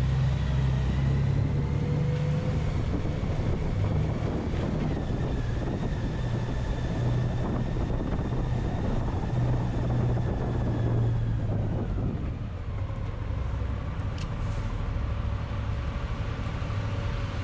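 A vehicle running steadily with a deep rumble and a droning hum whose pitch steps down twice, cut off abruptly at the end.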